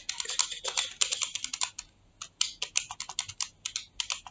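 Keypad keys tapped rapidly as figures are entered into a sum. There are two quick runs of key clicks with a brief pause between them at about two seconds.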